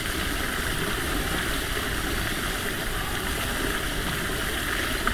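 Steady rushing of a stream or brook, an even wash of flowing water with no breaks.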